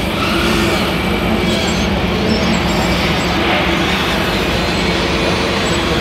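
Steady electronic diesel-engine running sound from RC model trucks' sound modules, mixed with the continuous din of a busy exhibition hall.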